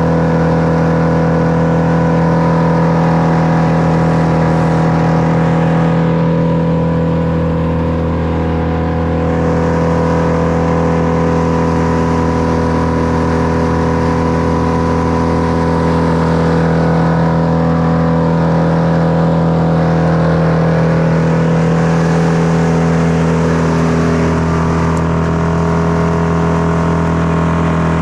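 An engine running steadily at high speed, with small dips in load about a third of the way in and again near the end.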